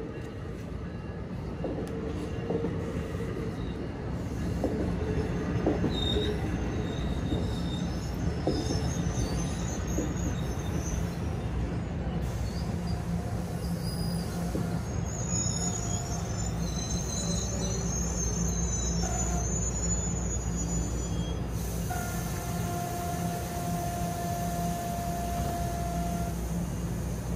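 NJ Transit bilevel commuter coaches rolling slowly past and braking to a stop, a steady low rumble with scattered high-pitched squeals from wheels and brakes. A longer steady squeal sounds near the end as the train halts.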